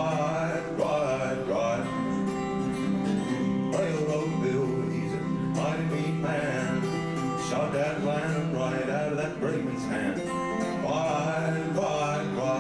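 Man singing a folk song live, accompanying himself on acoustic guitar.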